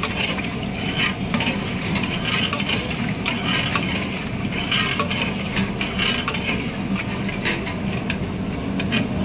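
Long metal ladle stirring thick yogurt-and-chicken korma in a large aluminium pot, in repeated sloshing strokes a little under a second apart, with sharp clicks of metal on the pot. A steady low rumble runs underneath.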